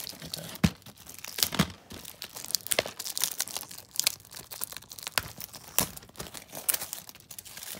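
Plastic packaging being torn open and crinkled by hand, in a run of irregular sharp crackles.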